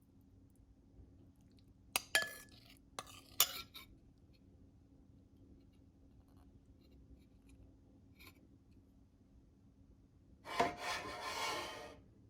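Tableware being handled: a few sharp clinks against a dish, one with a brief ring, then about a second and a half of scraping near the end.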